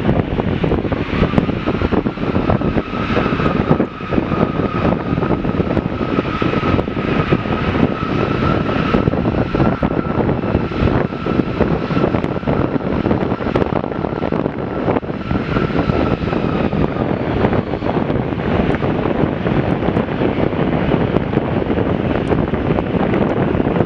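Airbus A340-300's four CFM56 turbofan engines at take-off thrust: a loud, steady jet noise with a high whine from the engine fans that fades out about two-thirds of the way through, leaving the rumble.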